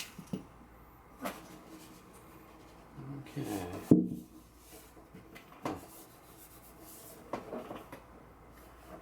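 Scattered wooden knocks and clicks as the guitar and tools are handled at the bench, with the loudest knock about four seconds in, just after a short mumbled stretch.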